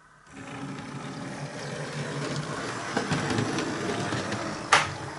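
A model locomotive running along the track, the whir and rattle of its motor and wheels starting suddenly and growing louder as it comes close. There is one sharp click near the end.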